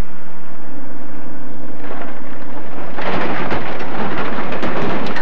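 A truck's engine running steadily, then from about three seconds in a loud rumbling crash and clatter of metal and rock as the truck rolls over and tumbles down a steep earth slope.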